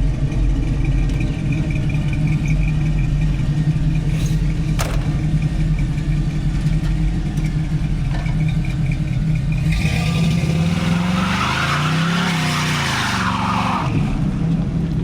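1983 Oldsmobile Cutlass Hurst's V8 running steadily, then revved hard about ten seconds in while the rear tyres spin and screech in a burnout. The engine pitch climbs, then falls back about four seconds later as the tyre noise stops.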